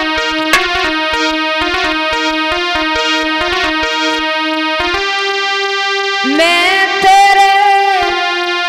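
Instrumental music: a stepping melody over a steady held note, with light irregular ticks. About six seconds in, a woman's voice comes in, sliding up into one long held note, the opening of a devotional vandana.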